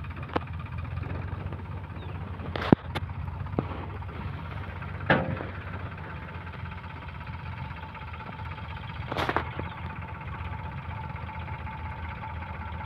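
Sonalika tractor's diesel engine running steadily under load as it pulls a paddy thresher up an embankment. A few sharp clicks come about three seconds in, a knock at about five seconds, and a brief rush of noise about nine seconds in.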